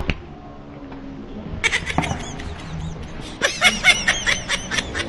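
A person laughing in quick, high-pitched bursts, starting about one and a half seconds in and growing denser near the end.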